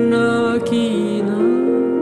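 Slow piano accompaniment to a Neapolitan song, with a voice holding a long note that slides up a little about halfway through.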